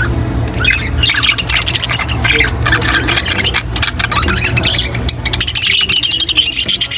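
A flock of budgerigars chattering and warbling, with fast, busy chirps that grow denser near the end, over a steady low hum.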